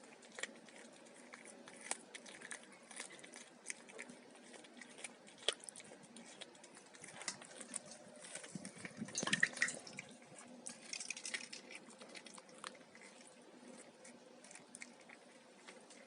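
A cat eating fish: irregular wet smacks and small crunches of chewing and licking, with a louder run of them about nine seconds in.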